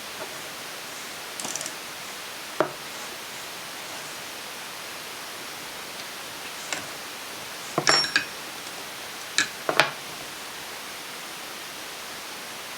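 Hand tools working a tight cylinder nut on a two-stroke motorcycle engine: scattered metallic clicks and clinks of a ratchet and socket, bunched around the middle, over a steady hiss.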